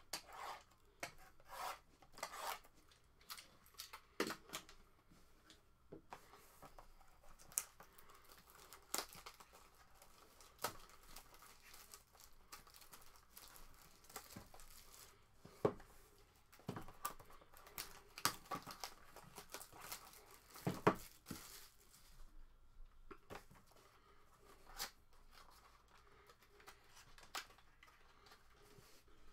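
Cellophane shrink-wrap being torn and crinkled off a small cardboard box of trading cards, then the box's cardboard flap pulled open: faint, irregular crackles and short rips.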